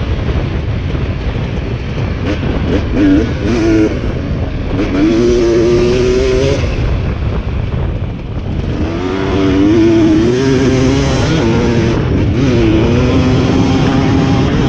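Two-stroke dirt bike with a new exhaust pipe ridden hard, its engine note repeatedly rising under throttle, holding, then dropping, over a steady low rumble. The throttle eases off briefly about four and eight seconds in.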